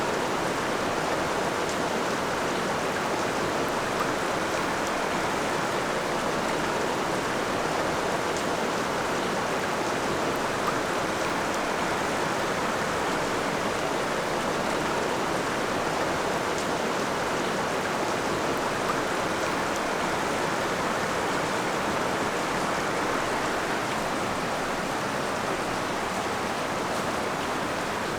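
Steady rushing of a river running through rapids, an even noise that holds level throughout.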